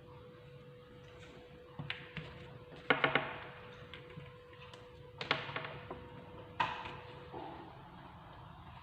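A few sharp knocks and clattering clacks, the loudest a quick rattle of several about three seconds in, over a faint steady hum that stops near the end.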